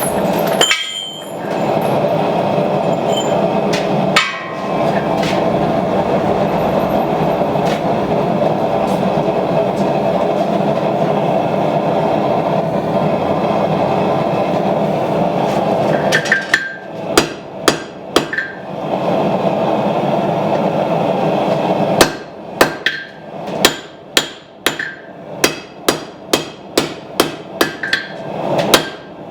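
A forge burner running with a steady rush while the steel heats, then hand-hammer blows on hot steel at the anvil: a few strikes about halfway through, then a steady run of about two ringing blows a second over the last several seconds.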